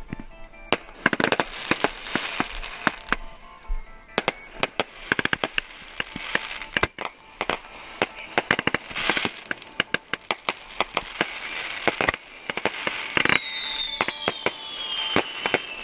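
Fireworks finale: rapid bangs and crackling bursts going off one after another. Near the end a whistling firework sounds, falling slowly in pitch.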